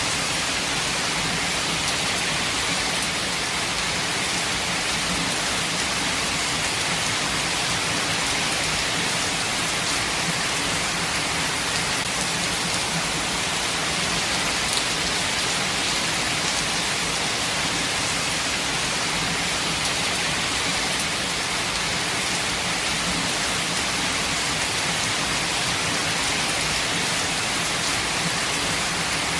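Steady rain falling on foliage and ground, an even hiss with scattered droplet taps and no let-up.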